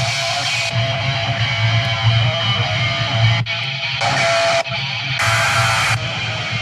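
Music led by electric guitar, with a steady low beat pulsing about twice a second.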